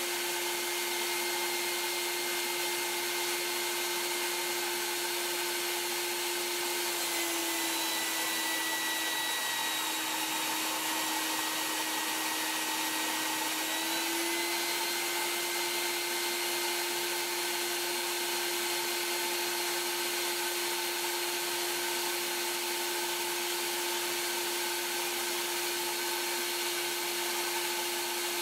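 Shop vac motor running with a steady whine and air rush, its hose held to a Lego four-cylinder engine to drive it on air. About seven seconds in the whine drops slightly in pitch and comes back up about seven seconds later.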